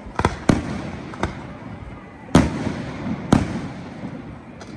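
Aerial firework shells bursting in a fireworks display: about five sharp bangs, each followed by a rolling echo, the loudest two coming about two and a half and three and a half seconds in.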